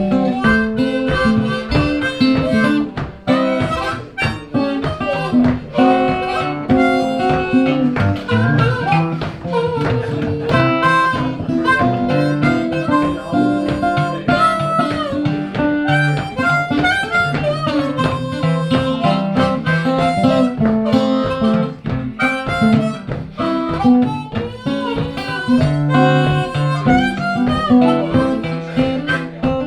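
Harmonica playing an instrumental blues solo with bending notes, over guitar accompaniment.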